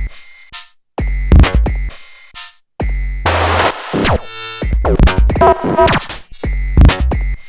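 Erica Synths Perkons Voice eurorack drum module driven by a step sequencer, playing electronic percussion patches. It comes in short bursts of about a second, with brief silent gaps between them. Deep kick-like bass sits under noisy hits and pitched, ringing tones.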